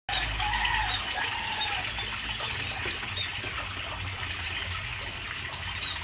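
Small aviary birds, canaries among them, chirping with short high calls, most in the first second or two. Behind them runs a steady hiss like trickling water.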